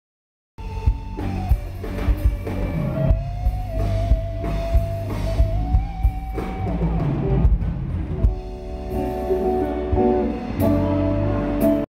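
A rock band playing live, with electric guitars and a drum kit. A long held note bends upward about a second in and sustains for several seconds before the full band plays on.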